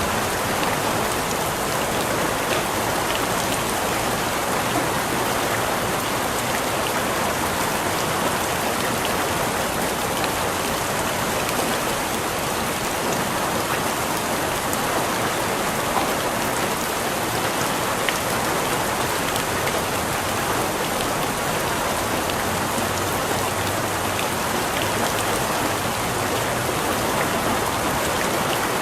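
Steady rain falling on a surface: a continuous even hiss with many small drop patters, at an unchanging level.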